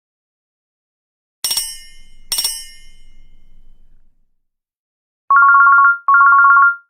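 Nokia E6 phone alert tones: two bright chime strikes about a second apart that ring and fade, then two short bursts of a rapid pulsing two-note electronic ring.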